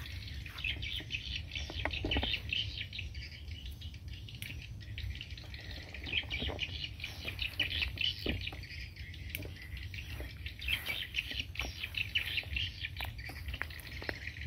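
Small birds chirping continuously, with scattered snaps and rustles of twigs and leaves as someone pushes through dense brush.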